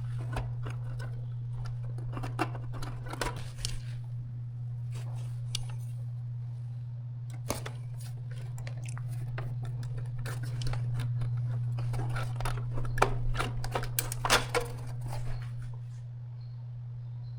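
Scattered clicks, taps and scraping of metal and plastic parts being handled as the power module is worked back into an E4404B spectrum analyzer, over a steady low hum. The handling is busiest in the first few seconds and again in the latter half, then eases off near the end.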